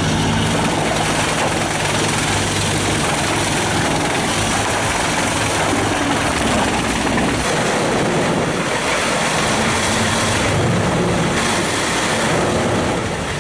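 A large engine runs steadily under a loud, continuous rushing noise, with no letup.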